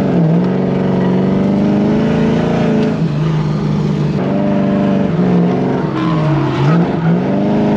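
C5 Corvette drift car's engine held high in the revs while drifting, heard from inside the cabin; the revs dip and climb back again about four times.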